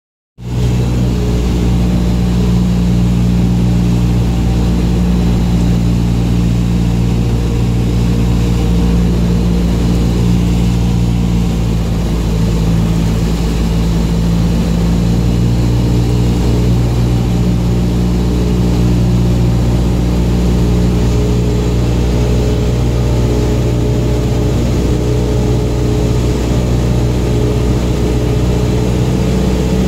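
Piston engine and propeller of a single-engine high-wing light aircraft, heard inside the cockpit as a loud, steady drone on approach to landing. It starts about half a second in.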